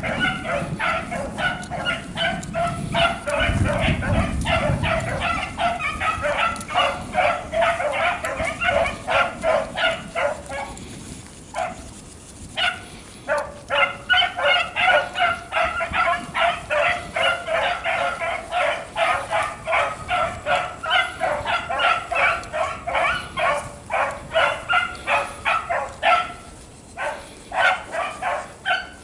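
Pack of beagles baying in quick, repeated cries while running a rabbit on scent, with a brief lull about eleven seconds in before the cries pick up again.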